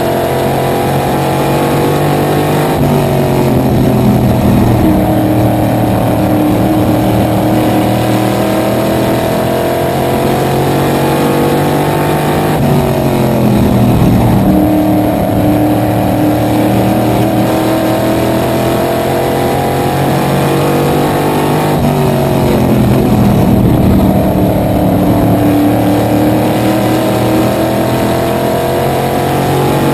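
Small-block V8 supermodified race car engine heard from inside the cockpit at racing speed. The engine note drops sharply three times, about nine seconds apart, as the car lifts for the turns, then climbs steadily as it accelerates back down the straights.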